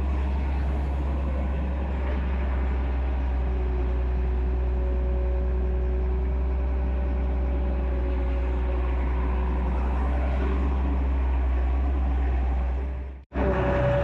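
Excavator's diesel engine running steadily with a deep low hum. It fades out and cuts off abruptly about a second before the end.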